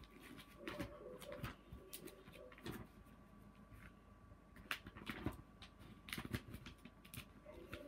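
Soft, scattered rustles and clicks of paper being handled: stickers and album pages being shuffled and turned by hand.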